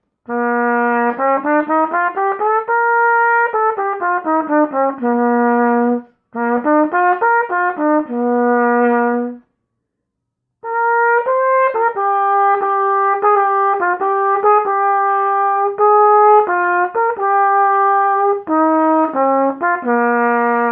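Trumpet played with a Vincent Bach 1-1/2C mouthpiece: a scale rising step by step and back down, a short run, then after a pause a longer phrase of separate notes, ending on a held low note.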